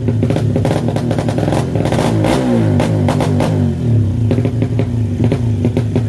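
Honda Supra motorcycle with a 200cc engine running through a new Thai-style aftermarket exhaust (knalpot Thailand), idling loudly with a rapid pulsing beat. It is revved once about two seconds in, and the pitch falls back to idle by about four seconds.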